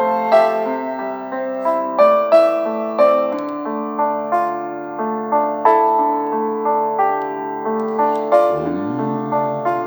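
Improvised solo piano playing slowly, single notes struck about every half second and left ringing over sustained lower chords.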